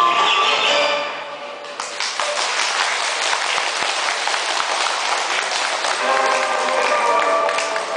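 Dance music ends about a second in, and audience applause starts at about two seconds and goes on. About six seconds in, music with held notes starts again under the clapping.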